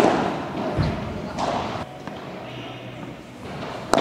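Padel rally: a sharp racket strike on the ball at the start and another near the end, with a duller thud about a second in, each hit ringing on in the hall.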